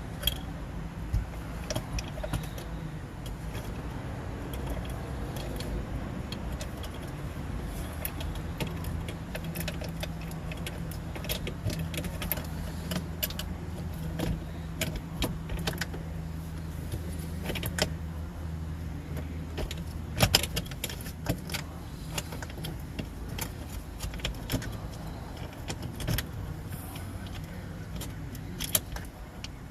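Scattered metallic clicks and clinks of hand tools and parts being handled as a Porsche 356 shifter is bolted back in with Allen bolts, over a steady low hum.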